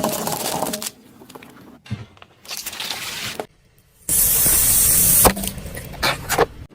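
Things being crushed under a car's tyres: cracking and crunching, and about four seconds in a loud hissing spray lasting about a second, followed by a few sharp cracks.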